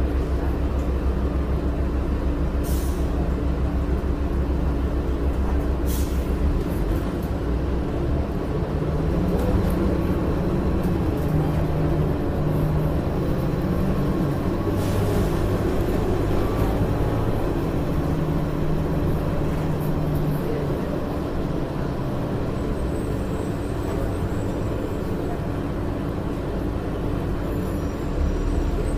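Cabin sound inside a 2006 Orion VII diesel bus: the Cummins ISL9 straight-six and Allison B400R automatic transmission run steadily as the bus drives. The engine note climbs higher from about nine seconds in and drops back to a low drone near the end. A few short air hisses are heard, the first about three seconds in.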